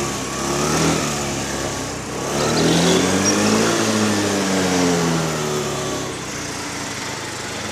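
Motor scooter engine running as it rides past, its pitch rising and then falling near the middle.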